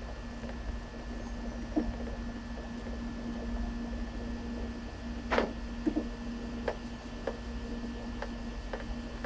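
Steady low electrical hum with a few faint, short clicks and soft scuffs; the loudest comes a little past the middle, followed by several smaller ones.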